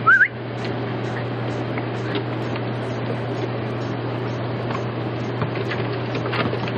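Steady machine-like hum with hiss, opening with one brief, high, rising squeal.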